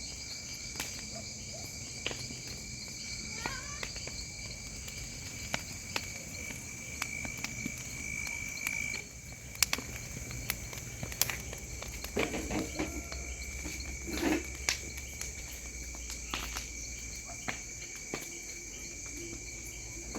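Steady chorus of crickets and other insects, holding several high tones, with sharp crackles and pops scattered throughout from a burning wood bonfire.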